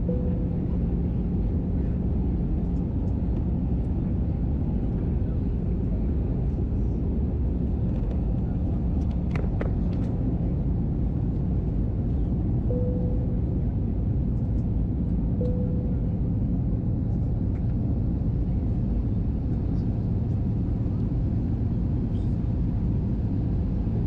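Steady cabin noise inside an Airbus A320 airliner on its approach: the low, even rush of the engines and airflow, with a couple of faint clicks about ten seconds in.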